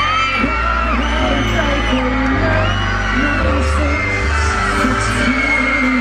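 A live pop band playing with a heavy bass line and a male singer, with fans shrieking and cheering over the music.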